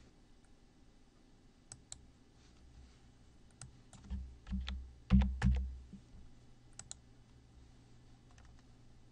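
Computer mouse clicks and keyboard keystrokes, scattered at first, with a cluster of louder, heavier keystroke thuds about four to six seconds in as a new number is typed.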